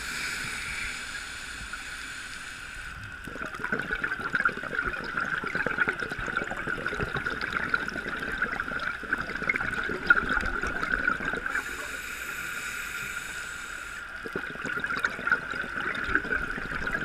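Scuba diver breathing through a regulator underwater: a hissing inhalation, then several seconds of bubbling exhaust, the cycle heard twice, over a steady high hum.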